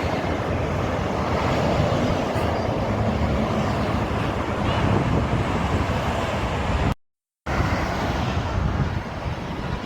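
Steady roar of traffic passing at speed on a toll road, with wind on the microphone. The sound cuts out completely for about half a second a little after the middle.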